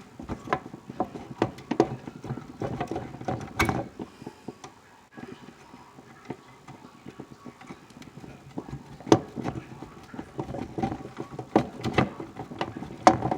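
Hands working wires and plastic terminal connectors on a furnace control board: irregular clicks, taps and rustling, with a quieter spell in the middle.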